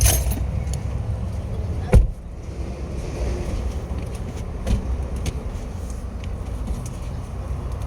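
Low, steady rumble of a car engine running, with a single loud thump about two seconds in, after which the rumble is quieter.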